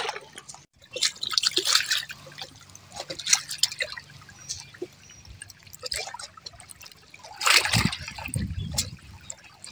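Small sea waves lapping and washing on the shore, with irregular splashes and trickling water; the biggest wash comes about seven and a half seconds in.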